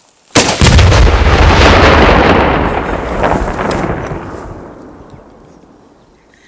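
A rifle-shot-triggered detonation of about four pounds of Tannerite exploding target: a sudden blast about a third of a second in, followed by a long rumbling echo that fades away over about five seconds.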